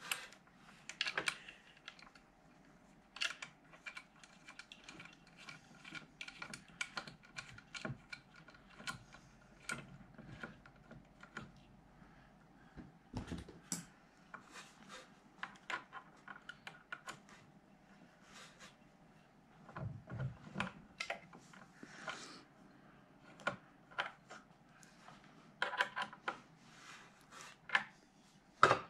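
Irregular small clicks, taps and knocks of parts being handled and fitted while assembling the handles of a quilting machine, with a couple of slightly heavier knocks about halfway through and around two-thirds of the way in.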